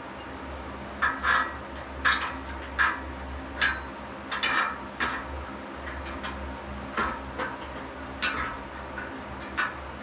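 Ratchet wrench clicking in short strokes, a quick rattle of clicks roughly once a second with a few pauses, as a bolt is tightened at the top of a steel power rack.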